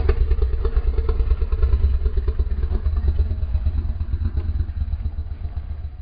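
Custom sound-effect growl of the Chimerasaurus Rex, a fictional hybrid dinosaur: one long, deep, rough growl-roar lasting about six seconds that tails off near the end.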